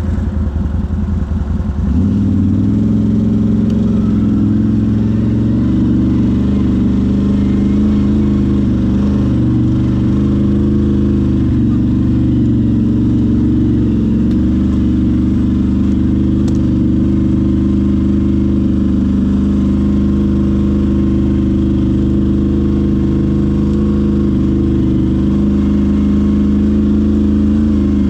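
ATV engine with a pulsing idle, then picking up revs about two seconds in and running steadily.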